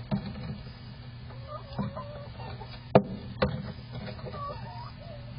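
Hen clucking softly in short, wavering low calls, with a few sharp knocks, the loudest about three seconds in, over a steady low hum.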